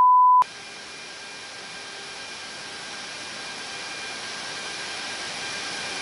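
A steady single-pitched beep, the tone of the detected fire-control radar signal, cuts off sharply about half a second in. It leaves the steady rushing hiss of the patrol aircraft in flight, with faint steady hums under it, slowly growing louder.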